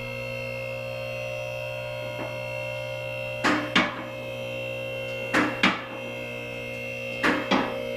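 Two-post car lift raising a car: the hydraulic power unit's electric motor hums steadily. Three pairs of sharp clacks come about every two seconds from about three and a half seconds in, typical of the lift's safety locks catching as the carriages climb.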